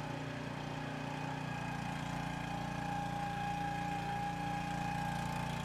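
Pump running steadily, drawing waste engine oil out of a diesel locomotive's grease pan. It makes an even mechanical hum with a whine that grows clearer about a second and a half in.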